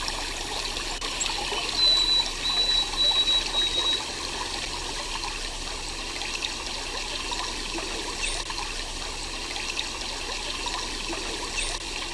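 Running water trickling steadily, with a thin high whistle lasting about two seconds, starting about two seconds in, and two short rising chirps later on.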